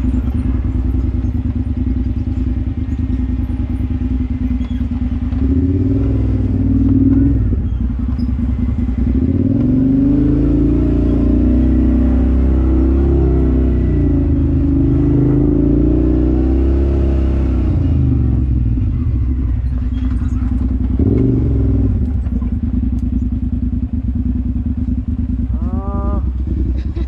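Off-road vehicle engine running at a steady low speed, picking up and easing off in a long stretch through the middle and briefly again near the end.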